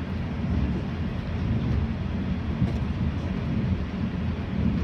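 485-series electric train running along the track, heard from inside the front car: a steady low rumble of wheels on rail.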